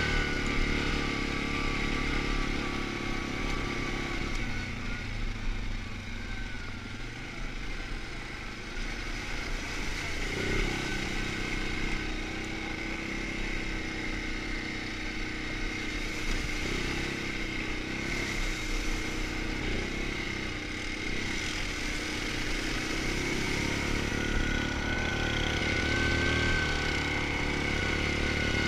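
ATV engine running as the quad climbs a rocky dirt trail, its note rising and falling with the throttle, with a steady high whine alongside.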